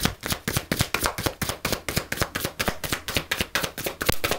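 A deck of tarot cards being shuffled by hand, the cards slapping together in a quick, even rhythm of about six strokes a second.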